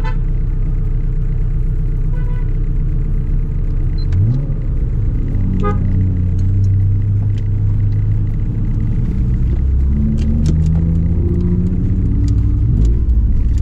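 Honda Civic Nouva's engine idling, heard from inside the cabin as a steady low rumble, with a brief rise in revs about four seconds in.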